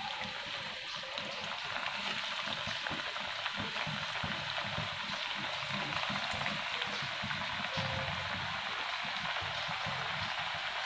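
Hara bhara kababs (spinach patties) deep-frying in hot oil in a pan on a medium-to-low flame: a steady, dense sizzle and crackle of bubbling oil.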